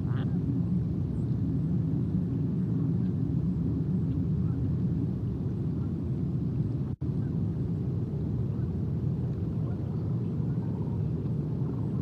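Steady low outdoor rumble, with a brief cut-out in the audio about seven seconds in and a faint short high sound right at the start.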